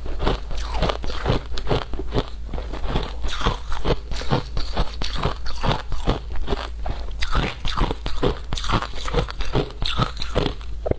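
Shaved ice being chewed close to the microphone: loud, irregular crunching, several crunches a second without a break.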